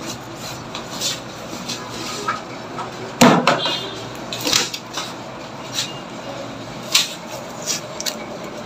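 Scattered metallic clinks and knocks of instruments being handled against a steel dish, with one louder clatter about three seconds in.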